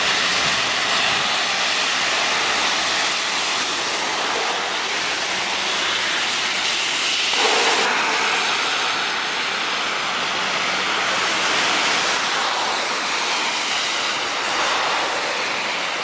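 Road traffic on a wet, snowy street: a steady hiss of car tyres on the slushy road. The sound shifts abruptly about seven seconds in.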